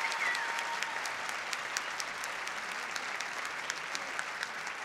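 Recorded crowd applause, a stock sound effect: steady dense clapping, growing slightly fainter toward the end, with a brief falling whistle just after it begins.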